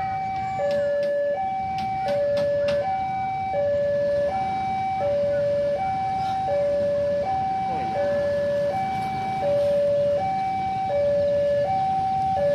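Electronic level-crossing warning alarm sounding a steady two-tone high–low chime, about one pair every 1.3 seconds, signalling that a train is approaching. A few sharp clicks sound in the first few seconds.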